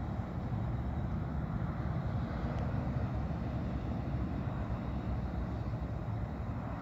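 Steady low rumble of background noise with no distinct events, and one faint click about two and a half seconds in.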